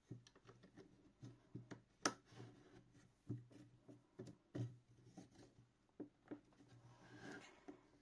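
Faint hand-working sounds of paracord crafting: scattered light taps, clicks and cord rubbing, with a sharper click about two seconds in and a short rustle near the end.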